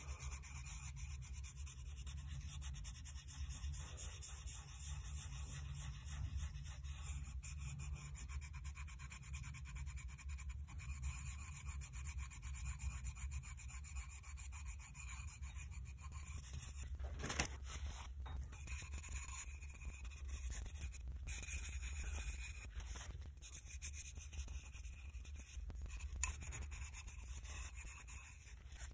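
Hardened sabi urushi (lacquer putty) on a kintsugi repair line being sanded down by hand with a small abrasive rubbed over the glazed ceramic bowl: a continuous quick scratchy rubbing, with one brief knock about two-thirds through.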